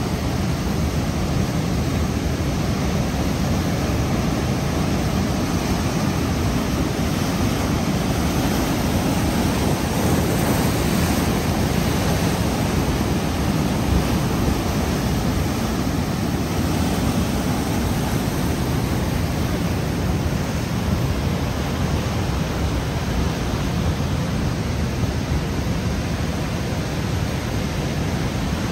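Steady rushing noise with no distinct events, heaviest in the low range and flickering throughout.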